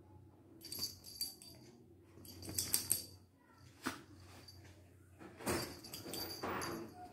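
Two Lhasa Apso dogs play-fighting on a fabric sofa: several short bouts of scuffling and rustling, with dog sounds mixed in. The longest bout comes near the end, and there is a sharp click about four seconds in.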